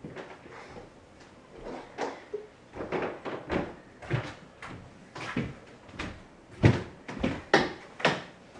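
A series of irregular knocks and taps, about fifteen of them with uneven gaps, the loudest a little past the middle.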